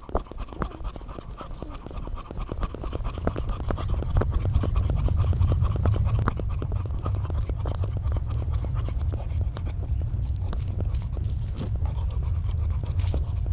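Dog panting right next to a camera strapped to its body, getting louder a few seconds in, with many small clicks throughout.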